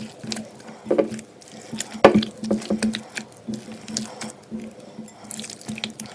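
A hand squelching and slapping thick, wet gram-flour and rice-flour batter in a bowl in irregular bursts, loudest about two seconds in. This is the batter being worked smooth as water is added, and it is still thicker than dosa batter.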